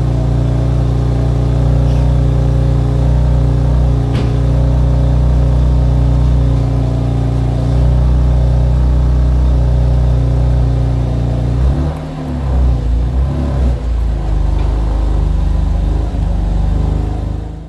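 BMW M2 Competition's S55 twin-turbo straight-six idling cold at the exhaust tips, with no throttle blips. The note is steady, then wavers unevenly from about twelve seconds in. The owners find it too quiet, muted by the factory petrol particulate filter.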